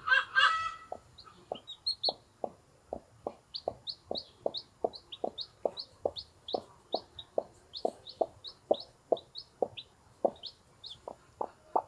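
Brahma hen clucking in a steady rhythm, about two to three short clucks a second, while her day-old chicks peep in short high notes between the clucks. A louder string of calls ends within the first second.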